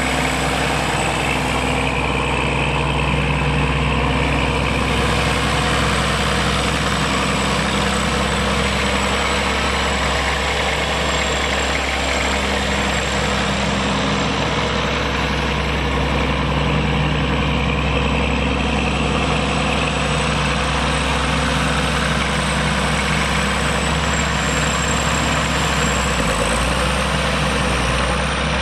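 John Deere 4620 tractor's six-cylinder turbo diesel engine idling steadily, with a thin high whine above the engine note.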